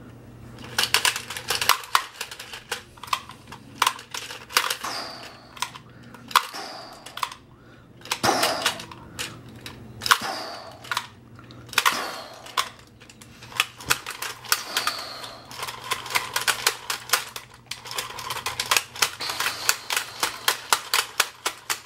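Rapid bursts of plastic clicking and clacking from a two-player Iron Man versus Hulk Superhero Slam fighting toy being worked hard in a match, its figures' punches striking.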